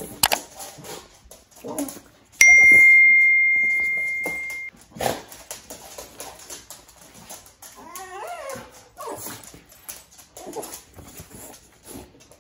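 A dog whining, with a wavering whine about eight seconds in, among scattered small clicks. About two seconds in, a single loud bell-like ding rings out, fades, and cuts off abruptly after about two seconds.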